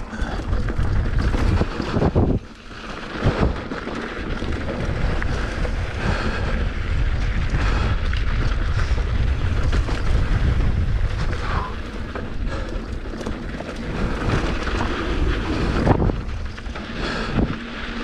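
Wind buffeting the microphone of a mountain bike descending a rocky, beat-up dirt trail, with the tyres rolling and crunching over dirt and loose rock and the bike rattling. There are a few sharp knocks from hits on rocks, around two and three seconds in and again near the end.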